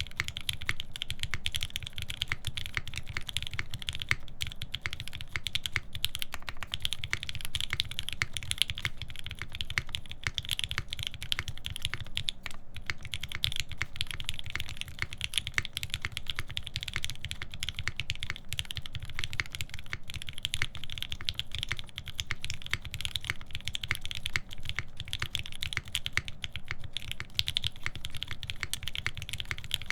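Continuous fast typing on a UNIKORN R2.1 custom mechanical keyboard with lubed Alpaca linear switches, a full FR-4 plate and GMK keycaps: a steady stream of rapid keystroke clacks.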